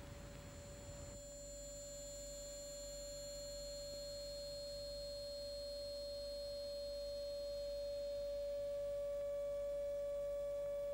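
A steady, pure electronic tone, slowly growing louder, after the last of the music fades out about a second in.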